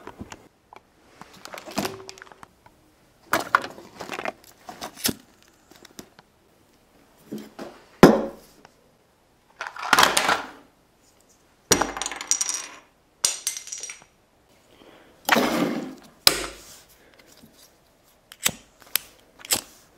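A run of short clatters as hard objects are dropped one after another onto a wooden tabletop, about ten in all. Near the end come a few sharp clicks, from a disposable lighter being flicked.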